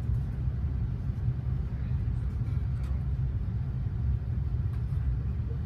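Steady low rumble of a commuter rail passenger coach in motion, heard from inside the car: the wheels running on the rails.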